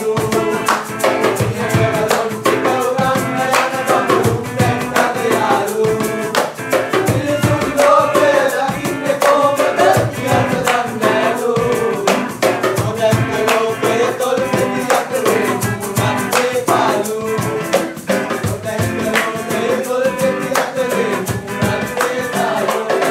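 Informal group singing of a Sinhala song to a reggae rhythm, led by one voice with others joining, over a steady beat on a hand drum and a strummed acoustic guitar.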